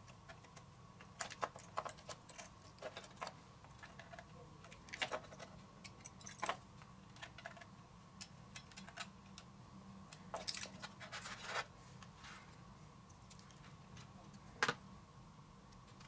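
Irregular small clicks, taps and scrapes of fingers and a small metal tool working the wire connections of an antique violet ray, freeing its old paper-and-foil condenser. One sharper click comes near the end.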